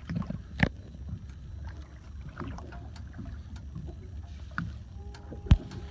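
Low, steady rumble aboard a motor boat idling on calm sea, with two sharp knocks, one just after the start and one near the end. A steady humming tone comes in about five seconds in.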